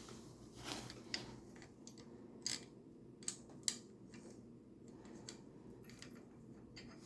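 A few light, separate clicks and clinks of small metal parts and tools being handled while a bike rack is fitted, over faint room noise.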